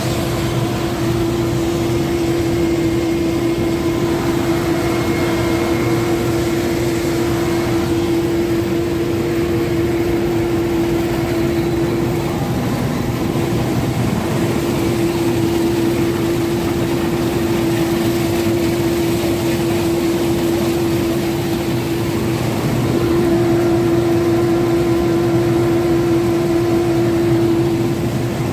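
Case IH 2688 axial-flow rotary combine running while harvesting beans: a steady engine and threshing drone with a humming tone. The hum dips briefly about twelve seconds in, and the sound grows a little louder near the end.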